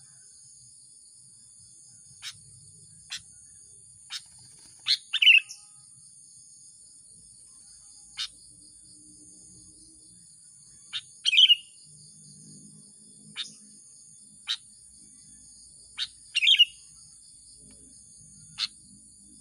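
Sooty-headed bulbul calling: short sharp notes about once a second and three louder, quick falling phrases spaced five to six seconds apart. A steady high insect trill runs under it.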